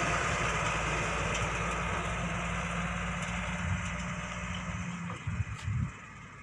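Heavy diesel engine running steadily, with a steady low hum; about five seconds in it quietens, leaving uneven low rumbles.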